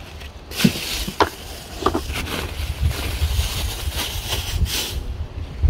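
Plastic packaging and bubble wrap rustling and crinkling as it is pulled off a boxed lawn mower, with a few sharp clicks in the first two seconds. A low rumble of wind on the microphone runs underneath.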